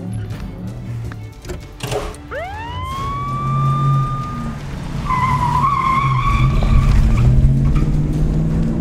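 Car chase sounds over background music. About two seconds in, a siren-like whine sweeps up and holds for about two seconds. Then a wavering high squeal runs over a deep car rumble that grows loud near the end.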